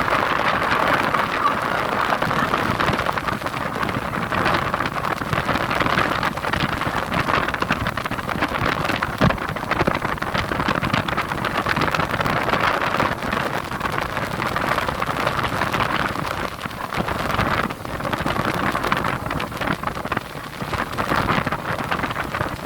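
Sea waves breaking and rushing in a continuous loud hiss, rising and falling slightly.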